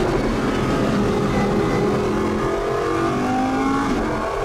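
Supercar engine accelerating hard, its pitch climbing steadily for about three seconds, then dropping sharply near the end as it shifts up a gear.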